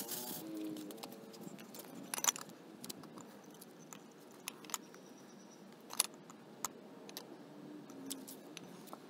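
Scattered light metallic clicks and jingles from a carabiner and key ring being handled, with a sharper click about two seconds in and another about six seconds in.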